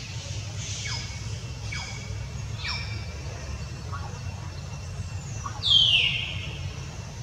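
Infant macaque making short high squeaks that fall in pitch, about one a second, then a louder, longer falling squeal near the end, over a steady low rumble.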